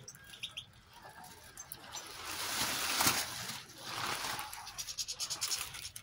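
European goldfinches feeding at seed trays: a couple of short high chirps about half a second in, a swell of rustling noise around the middle, and quick pattering ticks near the end.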